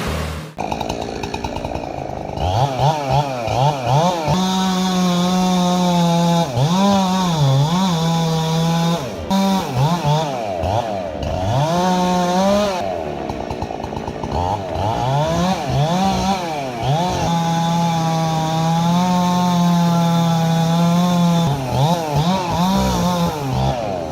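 Two-stroke chainsaw revving up and down again and again, held at full throttle for a few seconds at a time twice.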